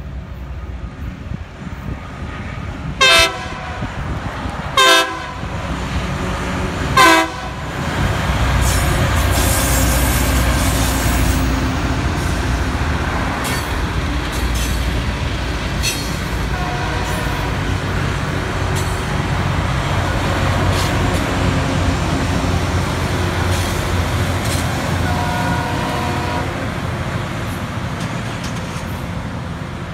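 Loram rail grinding train sounding its horn in three short blasts about two seconds apart, then passing at speed with a loud, steady rumble of engines and wheels on the rail.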